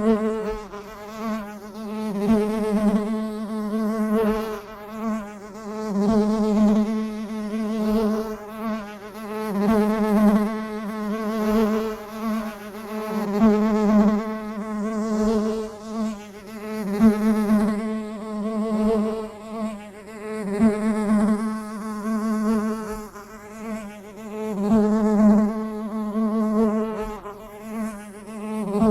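A bee buzzing continuously in flight, a steady low hum with a slight waver in pitch that swells louder and fades back every couple of seconds as the bee comes near and moves off.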